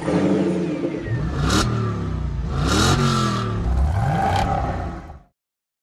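Car engine revving up and down several times, with three short rushes of hiss along the way; it cuts off abruptly a little past five seconds in.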